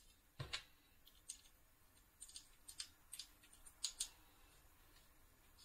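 Faint, irregular clicks and ticks of small hardware being handled, as an M3 screw is driven by hand into a standoff on a carbon-fibre frame plate.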